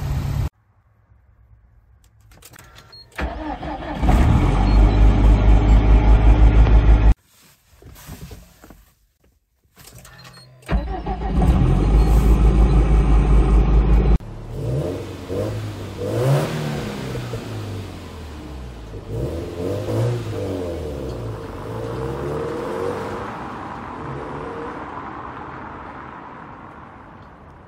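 Subaru WRX STI's EJ20 turbocharged flat-four started on a new lithium-ion battery in two short takes, the second a cold start. Each time the engine catches quickly and runs with an even, pulsing beat. Then a car accelerates away through several gears, its engine pitch rising and dropping at each shift and fading out.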